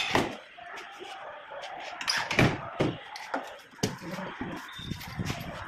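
Wooden knocks and clatter from a wooden drawer box and cabinet panels being handled and fitted together: a scatter of separate dull bumps, loudest about two and a half seconds in.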